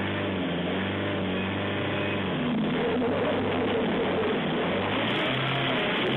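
Van engine running at low revs as the van manoeuvres on the driveway: a steady low hum whose pitch shifts a few times.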